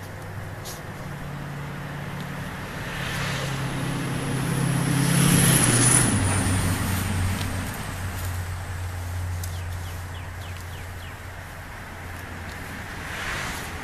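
A motor vehicle driving past, growing louder to a peak about six seconds in, its engine note dropping in pitch as it goes by and then slowly fading.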